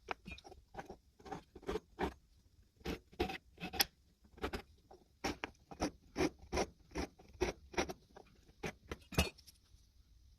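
A run of short scraping strokes, about two to three a second and irregular, with a brief pause near the middle.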